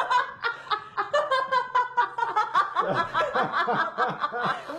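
Several people laughing together in quick repeated bursts, about four or five a second, with the voices overlapping.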